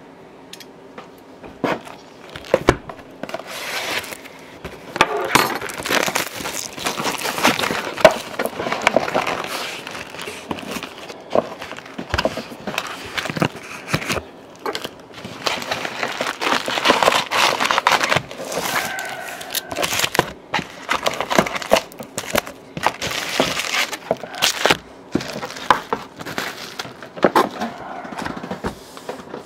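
Clear cellophane shrink-wrap being torn and peeled off a sealed trading-card hobby box, crinkling and crackling in quick, irregular bursts with sharp crackles.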